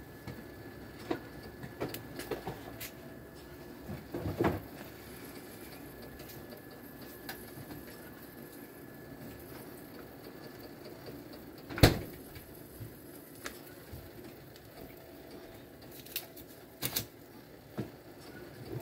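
Scattered kitchen clicks and knocks from cooking, with one sharp, loud knock about twelve seconds in and a few quick clicks near the end, over a faint steady background.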